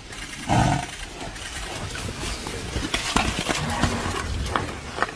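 A large wild animal gives a loud, low call about half a second in, then a run of knocks and scuffling noise follows.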